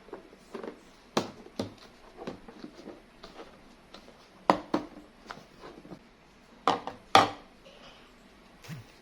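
Irregular knocks and taps of kitchen items and food being handled on a work surface, with a few louder clacks about a second in, midway and near the end.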